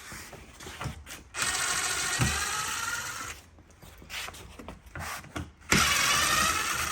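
A cordless drill-driver backing out the 2-inch stainless steel screws that hold the cupola's base at a corner: two runs of the motor, the first about two seconds long and the second about a second later, with small clicks between them.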